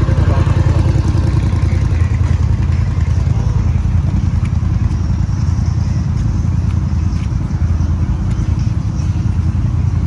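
ATV engine running steadily, a dense low rumble with a fast pulse.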